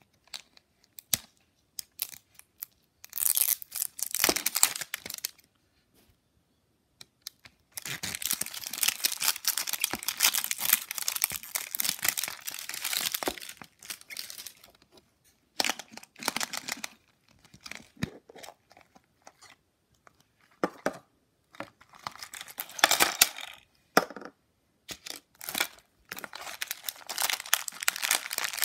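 Plastic wrapper being torn and peeled off a plastic surprise egg, crinkling in irregular bursts with short pauses; near the end, a small plastic bag of jelly beans crinkles as it is handled.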